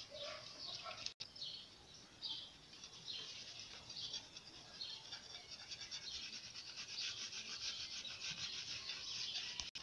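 Crayon scribbling on corrugated cardboard: faint scratchy colouring strokes, scattered at first, then quick and even back-and-forth hatching in the second half.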